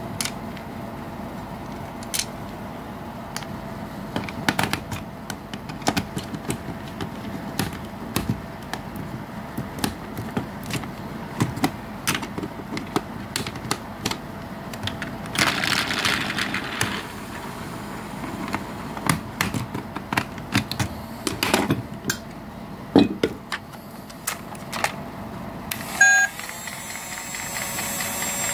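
Scattered clicks and knocks of a screwdriver and plastic parts as a toy steam locomotive's chassis is screwed back together. About two seconds before the end a short tone sounds and the toy's small electric motor starts, its wheels spinning with a steady whine.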